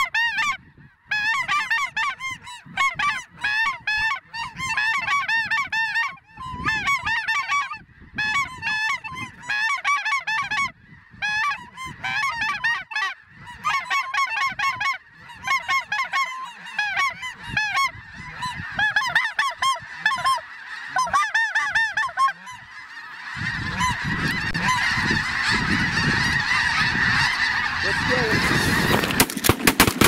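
Snow geese honking in a steady chorus of repeated calls, thickening into a dense, louder din of many birds with wind rumble about two-thirds of the way through. Shotgun blasts begin right at the end.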